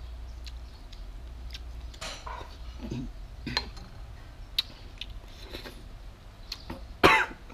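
A person eating from a pan with a metal spoon: scattered light clicks and chewing sounds over a low steady hum, with one short, loud sound about seven seconds in.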